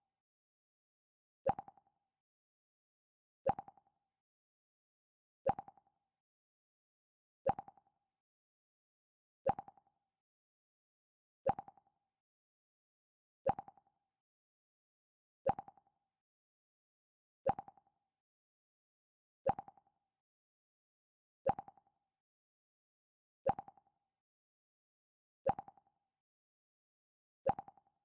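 Mac OS X "Pluck" alert sound repeating, one short plucked tone every two seconds with silence between, fourteen times.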